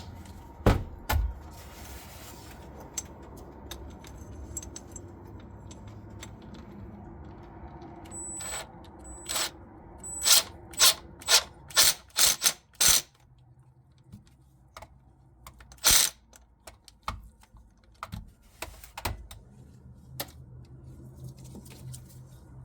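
Hand tools clicking and clinking as a hose clamp is tightened onto the fuel filter's hose. Near the middle there is a run of sharp clicks, about two a second, and a few seconds later one more loud click.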